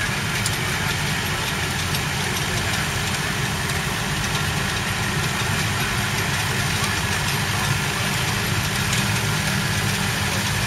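Claas Arion 440's 4.5-litre four-cylinder diesel engine running steadily as the tractor drives a rotary hay tedder through cut grass.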